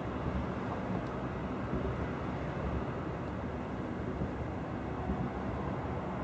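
Distant fireworks display: a steady rolling rumble of bursts blending into one another, with no single sharp bang standing out.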